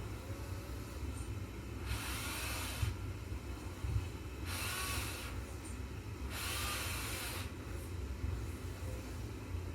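Huina 1580 RC excavator's small electric motors whining in three short bursts, each under a second, as its arm or tracks are driven, over a steady low rumble.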